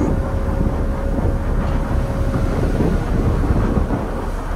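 Strong wind rumbling on the microphone over the rush of rough sea and wake water breaking along a Manly ferry's hull. A faint steady hum sits under it for the first couple of seconds.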